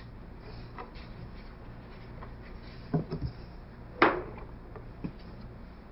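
Quiet room tone with a few light knocks and rubs, the sharpest single knock about four seconds in.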